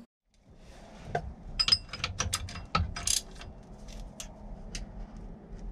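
Steel combination wrench clicking and clinking on engine bracket bolts as they are snugged up. A quick run of sharp metallic clicks comes about a second and a half in, then a few scattered ones, over a low rumble of handling noise.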